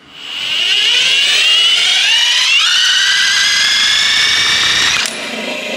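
A cordless Milwaukee power tool spins the rotor shaft of a Kia e-Niro electric drive motor. Its whine climbs in pitch for about two and a half seconds, holds steady, then stops abruptly about five seconds in. The rotor is being spun by hand tool to check it for noise, and some noise is heard.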